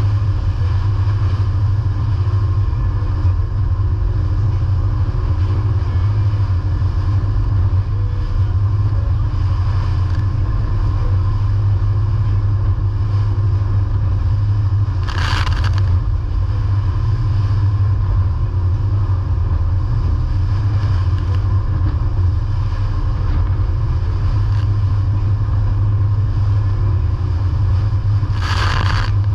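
A steady, unbroken engine drone with a strong low hum, like a vehicle running at an even speed, and two short hissing bursts about halfway through and near the end.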